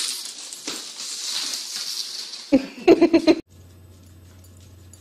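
A small dog barking in a quick run of about five sharp, loud barks, after a stretch of steady hiss. The sound then cuts off suddenly to a low steady hum with faint ticks.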